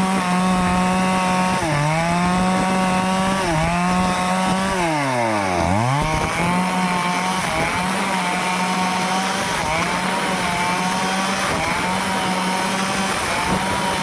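Stihl two-stroke chainsaw running at high revs, cutting through teak wood. Its pitch dips briefly several times and drops steeply about five seconds in before climbing back to full speed.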